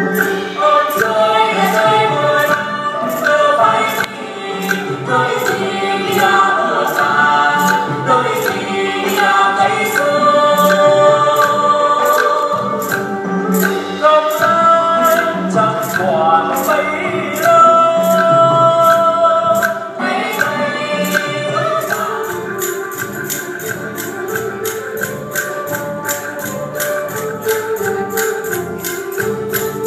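Live traditional Vietnamese music accompanying a water puppet show: voices singing a melody over instruments and a steady clicking percussion beat. The music drops somewhat in level about two thirds of the way through while the beat carries on.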